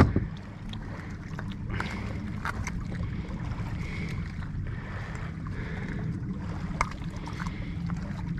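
A steady low rumble with scattered light clicks and taps, from hands handling a small trout in a container on a boat deck.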